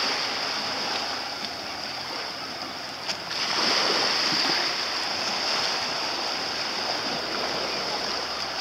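Water lapping and splashing around small sailing dinghies, under a steady hiss. A click about three seconds in, after which the sound grows a little louder.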